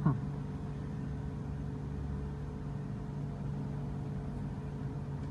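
Steady low hum with a constant hiss underneath. Right at the start there is one brief, sharp sound that slides quickly downward in pitch.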